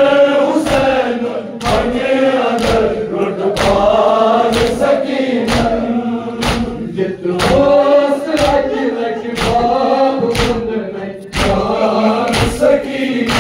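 A crowd of men chanting a Kashmiri noha in unison, with the sharp slaps of chest-beating (matam) in time, about one strike a second.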